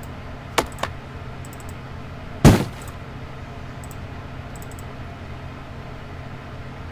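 Computer mouse clicks, then a single short, heavy punch-like impact played back from a close-combat sound-effects library, over a steady low hum.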